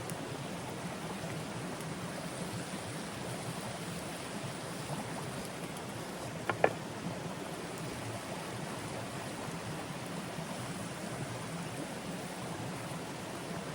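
Steady rushing noise of outdoor water, rain and running stream water. Two sharp clicks come close together about halfway through.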